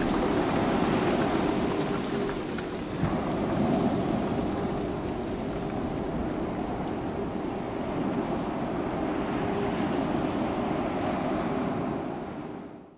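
Sea surf breaking and washing on a beach, with wind: a steady rushing that fades out near the end.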